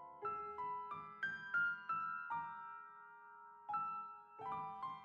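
Background piano music: a slow melody of single struck notes that ring and fade, with one longer held note in the middle.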